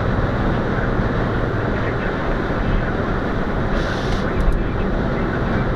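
Steady road and engine noise inside a car cabin at motorway speed. About four seconds in comes a short hiss of the windscreen washer jets spraying, followed by a couple of clicks.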